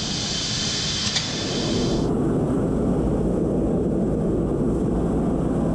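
Steady low rumble of a busy machine-tool show floor with machines running. About two seconds in, a higher hiss cuts off abruptly, leaving only the rumble.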